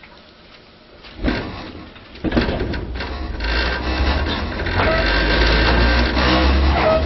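Inside a Tobu 5050 series electric train with nose-suspended traction motors: quiet at first, then a loud knock about a second in, and a couple of seconds later the motors and gearing start up and grow louder as the train pulls away.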